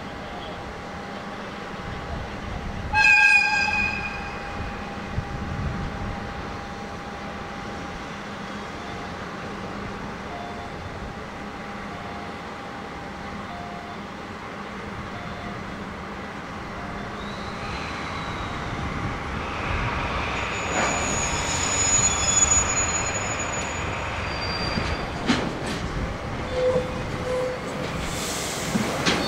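DD51 diesel-hydraulic locomotives shunting oil tank wagons. A short, loud whistle blast sounds about three seconds in. After it come the steady running of the diesels and the slow rumble of the wagons, which grows louder in the second half, with wheels squealing about twenty seconds in and a few clanks near the end.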